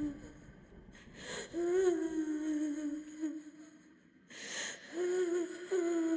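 A female voice humming slowly in long held notes, with an audible breath drawn between phrases about a second in and again past the middle.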